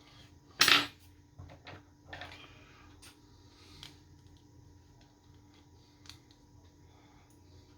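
Small handling clicks and scrapes of plastic parts and tools on an opened Nintendo Switch controller, with one loud brief noise under a second in and smaller clicks and a short scrape over the next few seconds.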